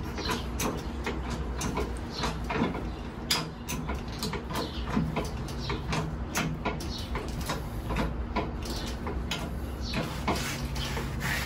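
Irregular clicks, knocks and scraping of things being handled, over a steady low hum.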